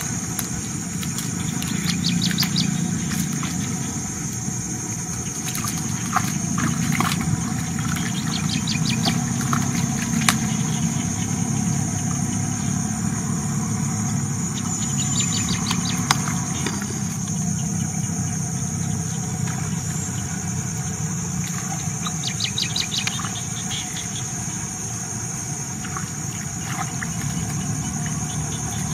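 Outdoor ambience: birds chirping in several short quick runs over a steady high-pitched whine and a low rumble.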